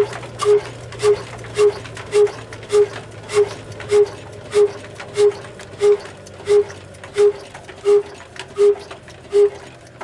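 Old 22 hp slow-speed stationary diesel engine with a heavy spoked flywheel running, each firing stroke a loud hollow exhaust beat with a sharp crack. The beats slow steadily from about two a second to just over one a second.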